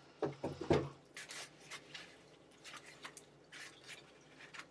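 Packaging being handled as a boxed external hard drive is unpacked by hand. A few sharp scrapes come in the first second, then scattered softer rustles.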